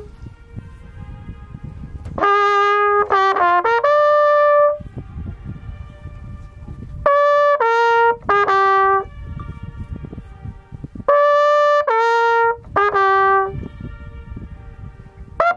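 Flugelhorn playing three short phrases of a few notes each. Every phrase is answered a moment later by a fainter echo of the same notes thrown back from the rock wall above the lake.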